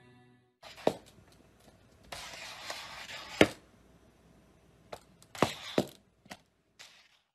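Scattered sharp knocks and short scraping rustles: a puppy's clear plastic cone collar bumping and sliding on a tiled floor.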